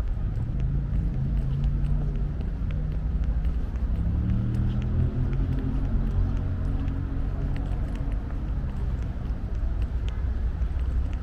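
Busy city street ambience: a low traffic rumble with a vehicle engine rising in pitch around the middle, and a steady run of footsteps clicking on pavement.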